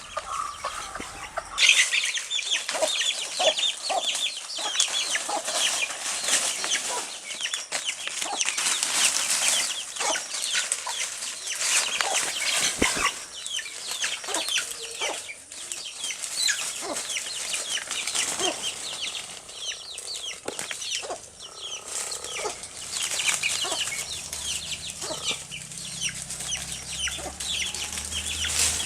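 A brood of chicks peeping rapidly and continuously in high-pitched cheeps, with a mother hen's lower clucks among them.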